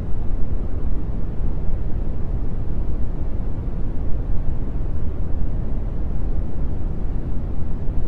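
Brown noise: a steady, deep hiss, strongest in the bass and fading away toward the highs, with no changes or events.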